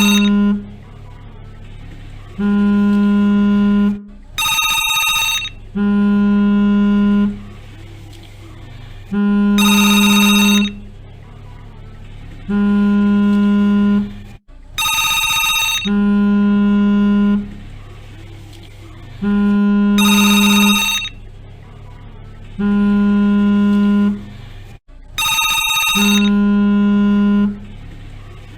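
Telephone ringing in short bright bursts about every five seconds, alternating with a phone's vibration motor buzzing in low pulses of about a second and a half, repeating every three and a half seconds or so.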